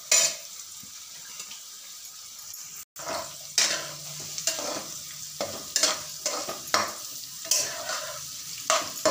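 Metal spatula scraping and stirring shredded cabbage and onions frying in oil in a metal kadai, over a steady sizzle. There is a loud scrape at the start, a brief gap about three seconds in, then regular scraping strokes a little more than once a second.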